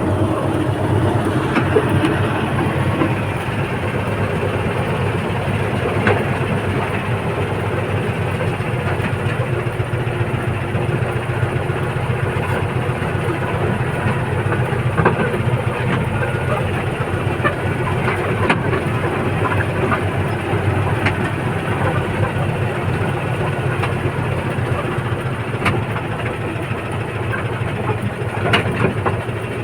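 A large engine running steadily, a continuous low rumble with scattered sharp clicks and knocks, several of them near the end.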